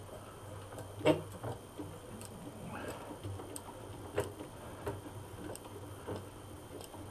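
Steel bench vise being cranked open by its sliding T-handle, its freshly greased screw turning. Light metal clicks and knocks come about once a second as the handle and jaw move, the sharpest about a second in.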